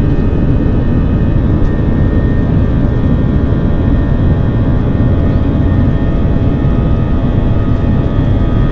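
Airbus A321's IAE V2500 turbofan engines at takeoff power, heard from inside the cabin: loud, steady engine noise with several steady whining tones over it.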